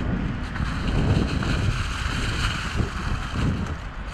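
Mountain bike tyres rolling over a thick layer of dry fallen leaves, a steady rustling, with wind rumbling on the microphone.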